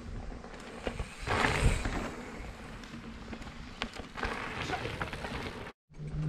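Mountain bike rolling along a dirt trail covered in dry leaves, its tyre and rattle noise growing loudest about four to five seconds in as it passes, over outdoor wind noise. A cut near the end brings a short steady low hum.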